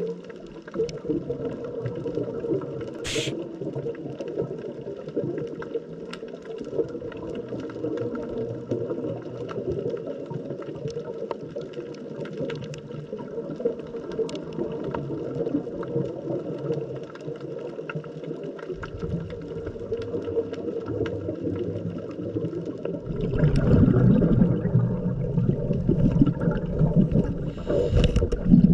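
Underwater ambience picked up by a scuba diver's camera: steady water noise, with a louder low rush of exhaled bubbles from the diver's regulator near the end.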